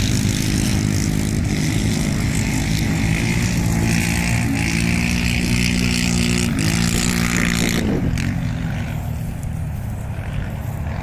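Quad bike (ATV) engine running hard, its pitch shifting in steps, then easing off and growing quieter about eight seconds in.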